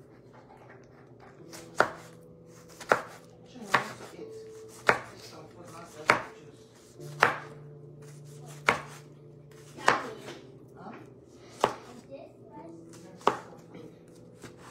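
Kitchen knife chopping vegetables on a wooden cutting board: a slow series of sharp knocks, about one a second.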